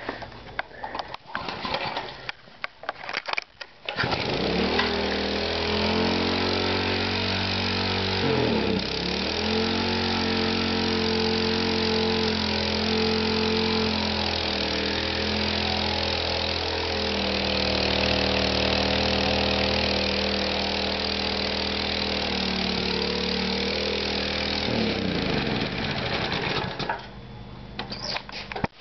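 Little Wonder edger's 3.5 hp Briggs & Stratton single-cylinder four-stroke engine starting up about four seconds in after some clattering. Its speed dips sharply and recovers a few seconds later, then it runs steadily. Near the end it is shut off and winds down to a stop.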